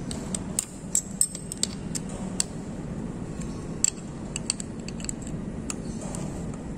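Light metallic clicks and clinks of a steel hex key working the screws of a milling machine's feed-handle hub as it is reassembled, scattered irregularly over a steady low hum.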